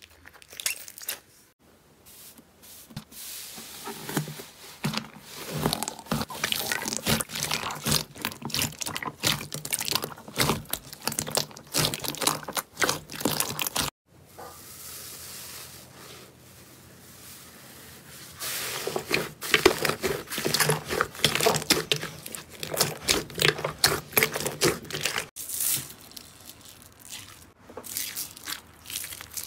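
Slime squeezed and pressed by hand: dense runs of sticky crackling and popping clicks. The sound breaks off briefly about halfway through and changes again near the end, where hands push into slime topped with foam beads.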